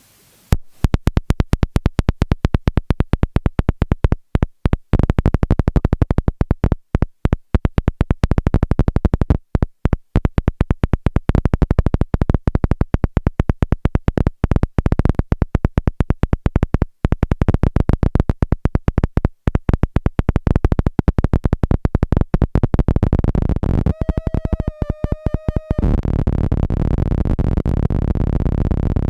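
A homemade NAND-gate square-wave synth makes harsh, stuttering streams of rapid clicks and buzzing pulses that start about half a second in and break off briefly now and then. Near the end a wavering pitched tone sounds for about two seconds, then gives way to a dense low buzz.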